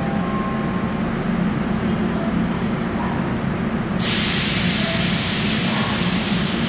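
Seoul Subway Line 3 electric train standing at the platform with its equipment humming steadily. About four seconds in, a loud hiss of released compressed air starts suddenly and keeps going.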